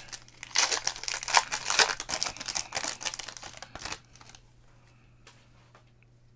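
A foil trading-card pack being torn open and crinkled in the hands as the cards are pulled out, a dense run of crackling that stops about four seconds in.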